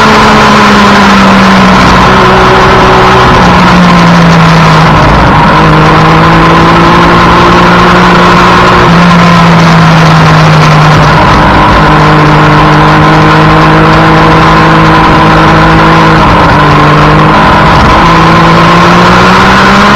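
Triumph Daytona 675's inline three-cylinder engine running hard at speed on track. Its pitch holds and slides, drops sharply several times, and climbs again near the end as the bike is ridden on and off the throttle through the gears, under a steady loud rush of noise.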